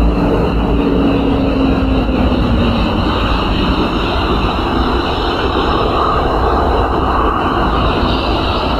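Steady, loud wind noise on the camera's microphone over a moving vehicle's low road rumble, with a tone sliding slowly downward in the first few seconds.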